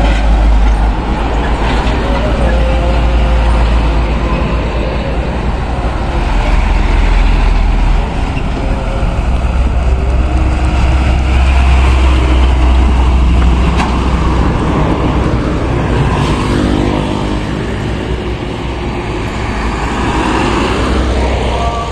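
Heavy diesel trucks passing close by one after another, a Hino tractor-trailer among them, their engines and tyres making a loud, deep rumble that swells and eases as each goes by.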